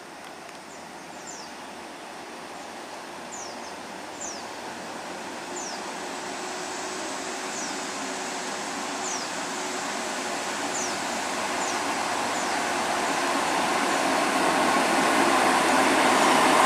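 Mercedes-Benz 1626 coach's diesel engine and tyres running as the bus approaches, growing steadily louder. A few short, high, falling chirps sound now and then over it.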